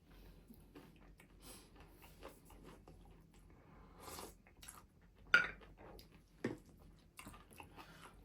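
Chewing and eating sounds at a table, with light clicks of dishes and cutlery. A sharp clink about five seconds in and a smaller one a second later.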